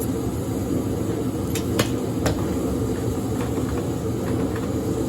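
Diesel heater kit parts being handled and set down: a few light knocks and clicks, over a steady low hum.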